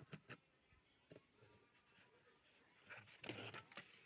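Near silence, broken by a few faint clicks early on and a soft rustle near the end.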